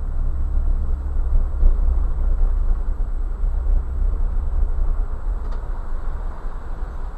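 Off-road vehicle driving slowly over a sandy gravel wash: a steady low engine rumble with tyre noise on the gravel.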